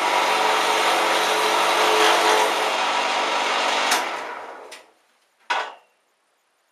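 Wood lathe running with a steady motor hum, then switched off with a click about four seconds in and winding down over about a second. A short, separate noise follows near the end.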